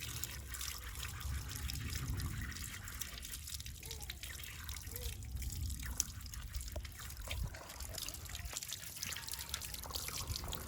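Water trickling and dripping with many small splashes as saltfish is rinsed by hand to wash off its excess salt.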